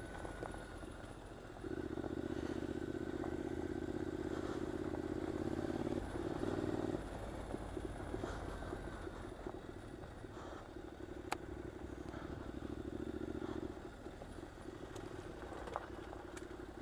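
2015 Triumph Scrambler's parallel-twin engine pulling at low speed, the throttle opened and closed several times so the engine note swells and drops back. Two sharp ticks come about eleven seconds in and near the end.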